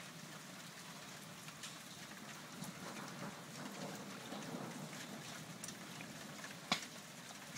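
Steady rain falling during a heavy thunderstorm, with one sharp click near the end.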